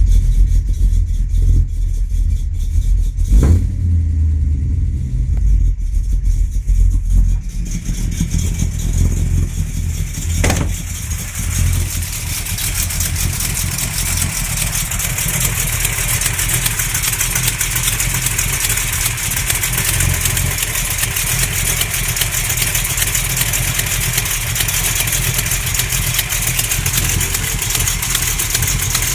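Mopar small-block 360 V8 running with a weird knocking tick that is not an exhaust leak and has outlasted new lifters and new main, cam and rod bearings. About eight seconds in, the sound turns brighter and the fast, even clatter comes forward over the low rumble. There are two single sharp knocks, one early and one about ten seconds in.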